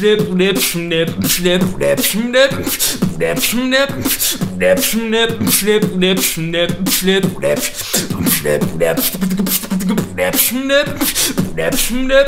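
Solo beatboxing: sharp mouth-made percussion hits in a fast, even rhythm over a hummed, pitched bassline and melody that moves from note to note.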